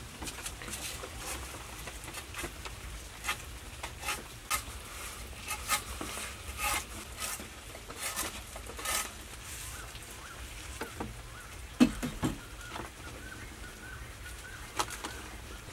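Dry plant pieces crackling and rustling in a series of short crisp crackles as hands crumble them over cooked rice on a bed of leaves, with one sharp knock later on. A bird chirps softly in the background in the second half.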